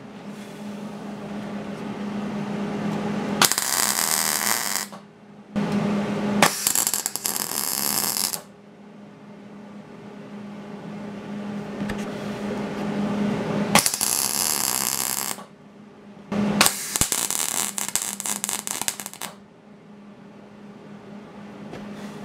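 MIG (wire-feed) welder arc crackling in four bursts of about one and a half to three seconds each, spot-welding the steel fan mounting bracket; a steady low hum runs between the welds.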